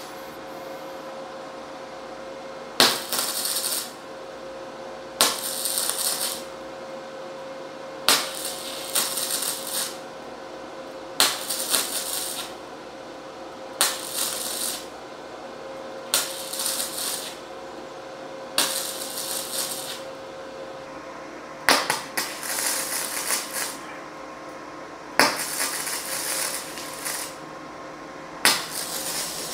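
MIG welding arc crackling in about ten short tack-weld bursts, each about a second long and two to three seconds apart, at a low 40-amp setting on 2 mm hollow steel tube. A steady hum runs underneath.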